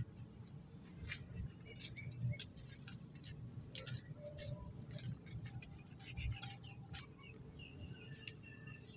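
Faint bird chirps in the background, with soft short clicks as a knife cuts through a lime.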